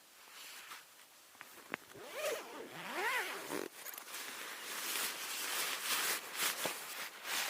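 A zipper being pulled in a run of short strokes, with a longer pull about three seconds in that rises and falls in pitch.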